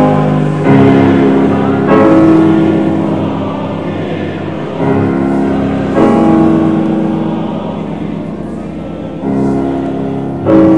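Background music: slow, sustained chords that change every one to three seconds, each new chord coming in louder and then fading.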